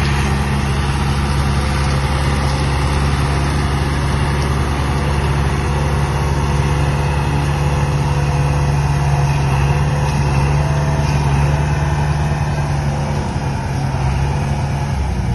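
John Deere 410D backhoe's diesel engine running steadily at a constant speed.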